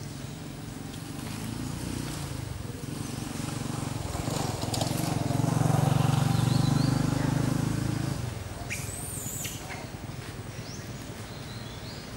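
A motor vehicle passing: a low engine drone that swells to its loudest around the middle and fades out a couple of seconds later. Faint bird chirps and one short high-pitched call come near the end.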